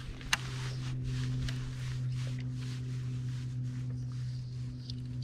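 Steady low hum of a boat's motor, with one sharp click about a third of a second in.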